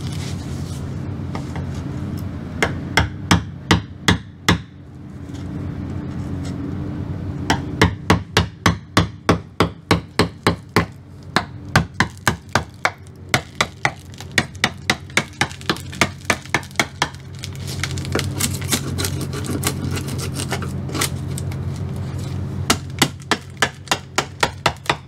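Hammer tapping wood chisels driven under the edge of a cured fibreglass laminate, prying the panel off its layup board. Sharp taps come in several runs of about three or four a second, with short pauses between runs.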